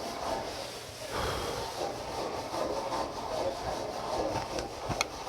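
A person chewing a mouthful of stir-fried octopus, squid and pork close to the microphone, a continuous wet, rubbing chewing noise with a sharp click near the end.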